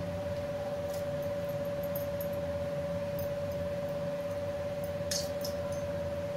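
A steady mechanical hum with one constant pitch, with a couple of light clicks about five seconds in.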